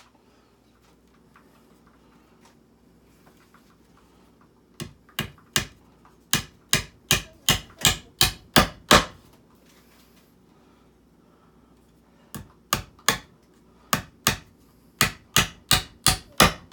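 Hammer driving nails into a wooden benchwork frame: two runs of about a dozen blows, two to three a second, each run growing louder as the nail goes home.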